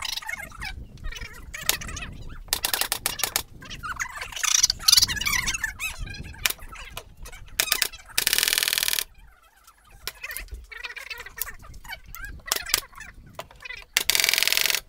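Electric drill driving screws into plywood cabinet panels in short runs of about a second, twice loudly near the middle and the end, between knocks and clatter of the wooden panels being handled.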